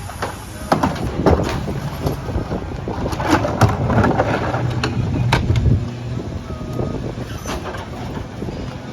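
CNG-powered Mack LR rear-loader garbage truck running, a steady low engine rumble with scattered sharp knocks and clanks.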